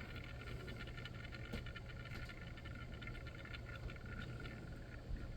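Small motorised display turntable running: a faint steady hum and a thin whine, with a fine, rapid ticking throughout.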